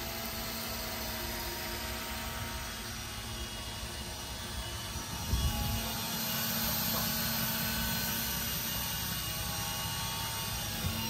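Boat engine running steadily at trolling speed, a low even drone, with a brief thud about five seconds in.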